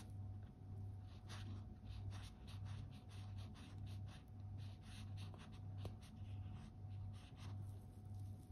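Faint handling noise: fingers rubbing and brushing against the watch and its cushion in short scratchy rustles. Under it runs a low hum that swells and fades a little under twice a second, with a faint steady tone.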